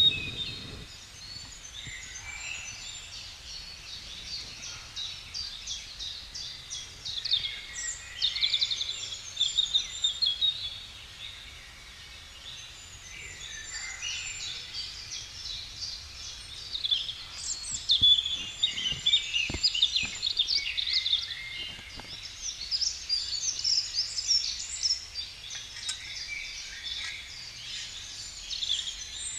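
Several songbirds singing at once, a dense run of chirps and trills, with a couple of faint clicks past the middle.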